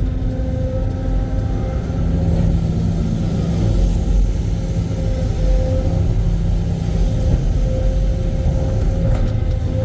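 Heavy excavator engine running steadily under load, a low rumble with a steady high whine held over it.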